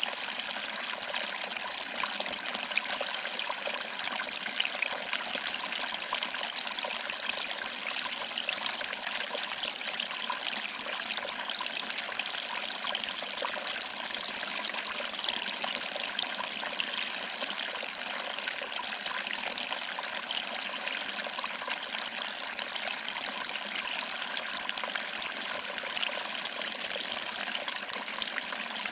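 Small waterfall, water trickling over rocks and splashing into a small pool: a steady, even rush of water full of tiny splashes, with no deep rumble.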